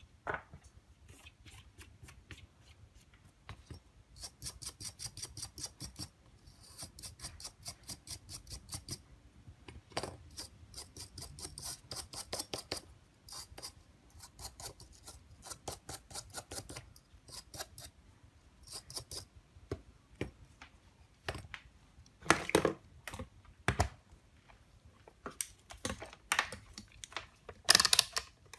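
A small brush scrubbing a phone circuit board in quick, rhythmic strokes, several a second, in runs of a few seconds. In the last third come separate, louder clicks and knocks as tools and the multimeter are handled on the bench mat.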